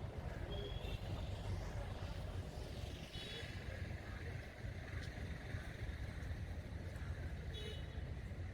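Nilgiri Mountain Railway toy train running: a steady low rumble that does not let up.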